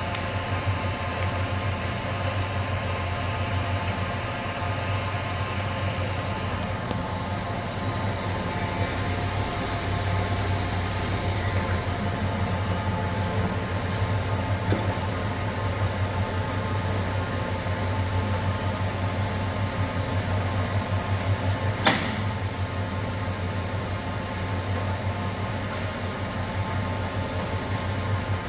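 Webb heavy-duty gap bed lathe running under power, its motor and geared headstock giving a steady hum with a whine of several held tones. A single sharp click about 22 seconds in.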